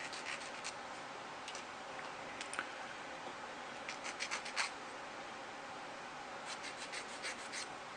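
A file rasping quick short strokes across a small plastic model-kit part, filing the sprue nub marks smooth. The strokes come in small groups, with the busiest runs a little after four seconds and again toward the end.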